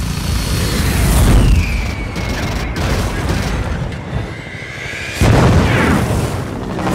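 Film battle sound effects: heavy explosion booms, one about a second in and a louder one about five seconds in. Between them a high whine slides down in pitch.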